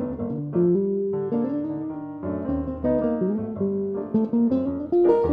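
Jazz guitar and piano duo playing a slow ballad, with the guitar carrying a line of single held notes over the piano.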